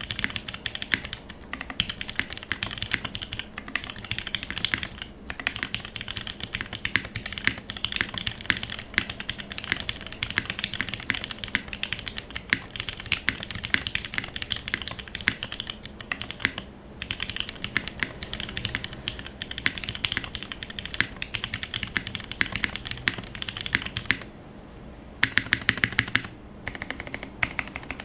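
Continuous fast typing on a TGR Jane v2 mechanical keyboard with lubed Cherry MX Clear tactile switches on a full brass plate, no foam inside, and GMK doubleshot ABS keycaps: a dense stream of key clacks. The typing stops briefly about three-quarters of the way through, then resumes with a run of louder strokes.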